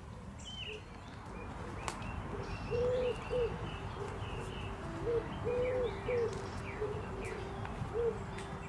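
A pigeon cooing in repeated low phrases of long and short coos, with small songbirds chirping higher up. A single sharp click comes about two seconds in.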